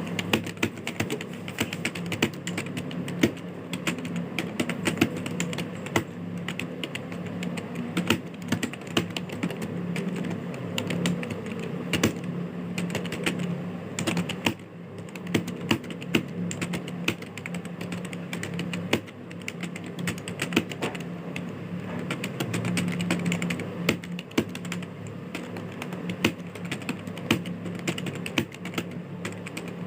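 Fast, continuous typing on a computer keyboard, with irregular keystroke clicks and a couple of brief pauses. A steady low hum runs underneath.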